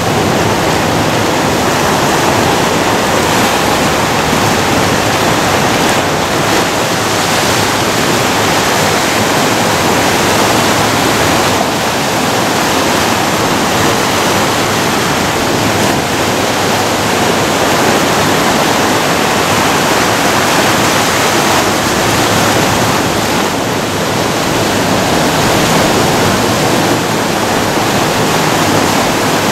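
Ocean surf breaking and washing over a rocky shore: a loud, steady rush of water that swells and eases a little as the waves come in.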